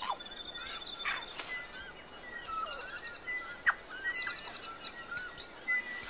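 Tui calling in forest, a varied string of sharp clicks, short whistles, brief held high notes and quick downward-sweeping notes, with other bird calls mixed in.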